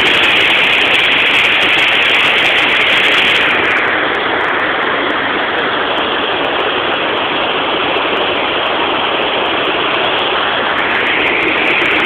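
Waterfall water rushing steadily over the rocks of a natural waterslide, a loud continuous roar of white water.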